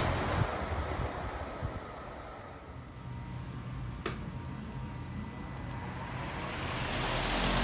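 An electric fan winds down and fades, then a sharp click about four seconds in, after which a black HVAC-type fan motor with its blade starts and spins up, its hum and air noise rising steadily toward the end.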